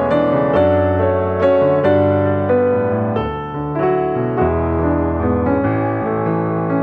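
Background instrumental piano music: a slow melody of struck, held notes.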